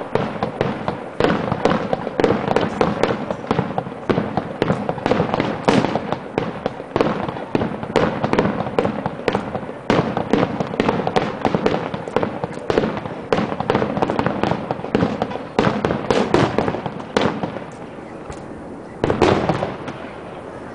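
Aerial fireworks going off in a dense barrage of rapid cracks and bangs, several a second. The barrage eases off about 17 seconds in, with one last loud burst about two seconds later.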